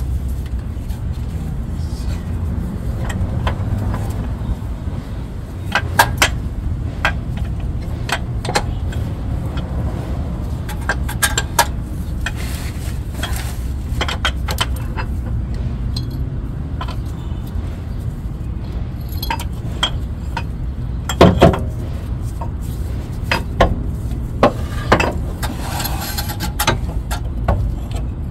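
Scattered metal clinks and knocks of hand tools working at the transmission's driveshaft seal on a 2006 Honda Odyssey, loudest about two-thirds of the way through, with a rubbing scrape near the end, over a steady low rumble.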